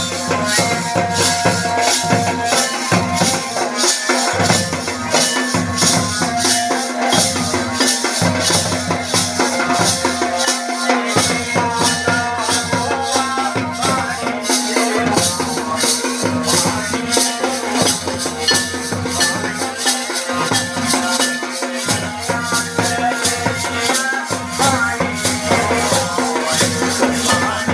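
Tandi folk song music with a fast, steady rattling percussion beat over a wavering melody.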